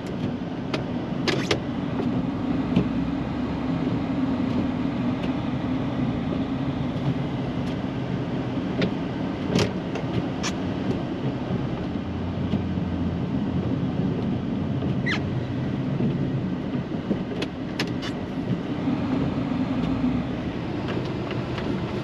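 Plow truck's engine running with a steady low hum, heard from inside the cab during a plowing pass, with a few sharp clicks scattered through.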